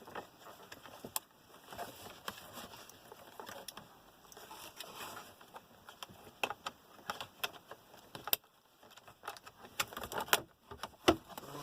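Scattered small clicks and taps of a screwdriver and a self-tapping screw being worked out of the plastic dashboard behind the instrument cluster, with a few sharper clicks near the end.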